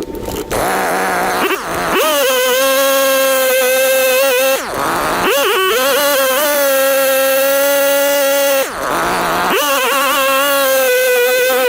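Perla Barb 84cc two-stroke chainsaw held at high revs while cutting firewood. The revs drop off briefly twice and climb straight back up.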